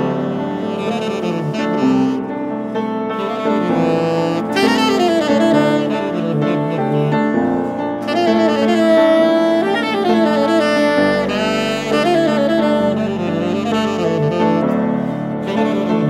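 Saxophone and piano duet: the saxophone plays a melody with runs and pitch bends over piano accompaniment.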